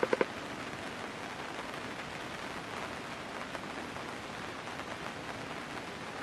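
Steady rain falling, an even hiss of noise, with three quick sharp clicks right at the start.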